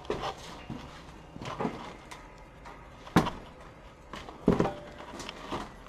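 Several irregular knocks and bumps, the loudest about three seconds in and again about a second and a half later, as people and gear brush and bump against metal equipment while moving through a cramped space.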